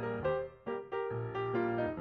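Background music: a light piano tune, its notes struck in quick succession and fading between strokes.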